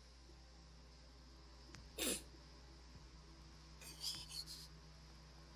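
Near-quiet room tone with a single short, sharp breath noise from a person about two seconds in. A few faint hissy sounds follow a little after four seconds.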